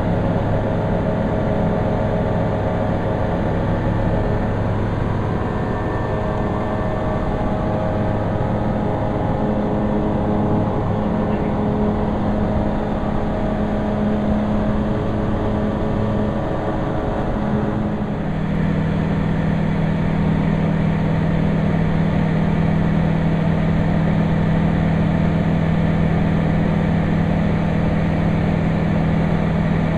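Allegro light sport aircraft's engine and propeller droning steadily in flight. About two-thirds of the way through, the note of the drone changes and it gets a little louder.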